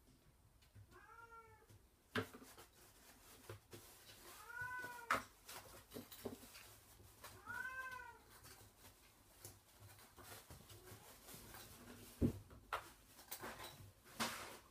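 Bengal kitten meowing three times, short calls that rise and fall in pitch, a few seconds apart. Between them come sharp knocks and clatter from kittens at play; the loudest are about two seconds in and about twelve seconds in.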